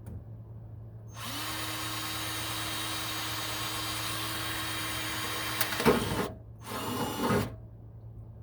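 Power drill boring a small pilot hole. It runs steadily with an even whine for about five seconds, then gives two short, louder bursts near the end as the hole is finished, and stops.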